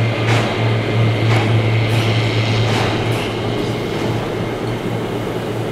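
Car ferry's engines running under way: a steady low drone with a rushing noise over it.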